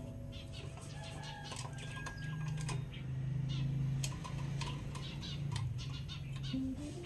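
Soft instrumental background music with sustained notes, over scattered light clicks and taps from a metal-and-glass lantern being handled and wiped with a cloth.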